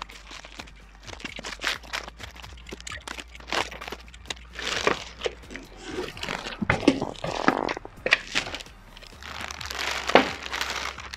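Packaging being unwrapped by hand: irregular crinkling and crackling of plastic wrapping with scattered clicks and knocks, loudest about seven and ten seconds in.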